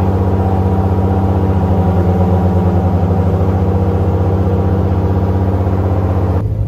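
Airboat engine and propeller running steadily at speed, a loud, even engine note that cuts off suddenly near the end.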